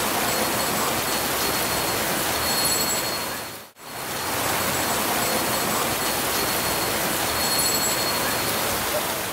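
Heavy rain falling in a steady hiss, which cuts out for a moment about four seconds in and then resumes.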